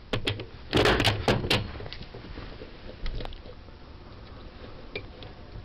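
Punch-down tool seating and cutting wires in a 66 punchdown block: a cluster of sharp clicks and scrapes about a second in, then a few faint clicks as further wires are worked into the block's clips.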